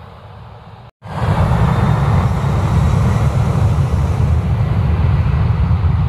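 Lion Air jet airliner's engines at takeoff power: a loud, steady roar with a heavy rumble. It cuts in abruptly about a second in, after a moment of silence, and replaces a quieter roar.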